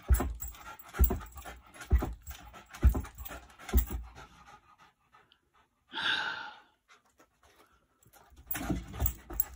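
Wire-haired terrier jumping up and down on a carpeted floor, its landings thudding about once a second with panting between. It then stops, stands panting with one short breathy burst, and the thuds start again near the end.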